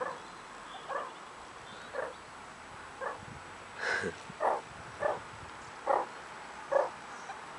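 Meerkats giving short, repeated calls, roughly one a second and a little closer together around the middle, about eight in all.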